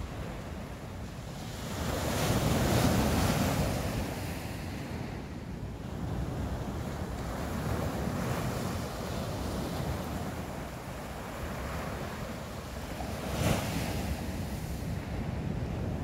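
Sea waves washing in, with wind buffeting the microphone; a louder wave surges about two to four seconds in.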